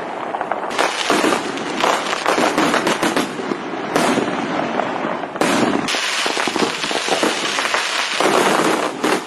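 Fireworks: a dense, continuous crackle of firecrackers popping in rapid strings, changing abruptly a few times.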